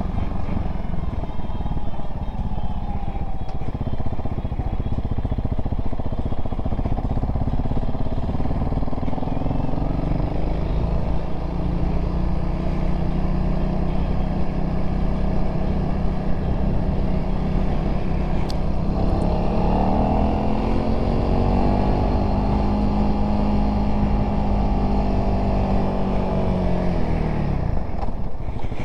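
Honda CRF300L's single-cylinder engine running as the motorcycle is ridden, over a steady rush of noise. About two-thirds of the way through the engine note rises in pitch as it accelerates, holds, then drops away just before the end.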